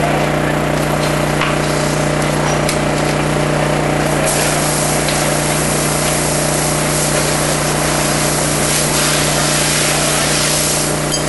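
Fire hose spraying water with a steady hiss, over an engine running steadily; the hiss grows brighter about four seconds in.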